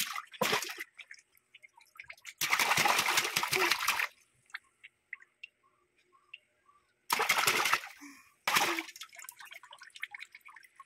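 Water splashing in a plastic basin as a baby slaps it with his hands. There is a long splashing burst about two to four seconds in and two shorter ones around seven and eight and a half seconds, with scattered drips between.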